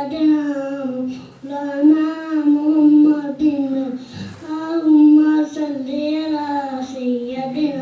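A young boy singing a naat unaccompanied, in long melodic phrases with short pauses for breath.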